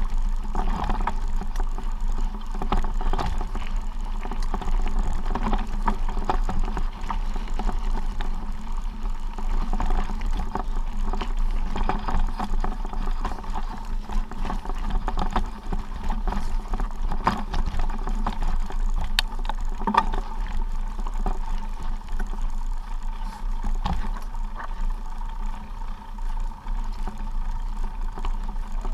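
Steady rubbing and handling noise from a body-worn camera moving along a stony mountain track, with irregular knocks throughout.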